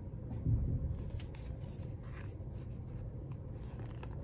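Pages of a large picture book being handled and turned: soft paper rubbing and rustling over a steady low rumble.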